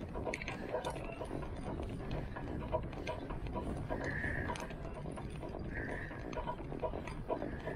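Bike ridden over rough ground: a steady low rumble of tyres with irregular clicking and rattling from the bike, and two brief high squeaks about four and six seconds in.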